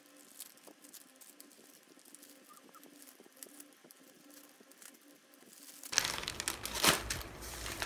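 Plastic cat-treat pouches and stick packets crinkling and rustling as they are handled, faint at first, then much louder with sharp crinkles from about six seconds in.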